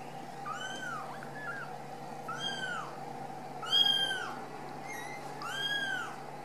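Ragdoll kittens mewing: a series of short, high, arched mews, one every second or so, the loudest about four seconds in.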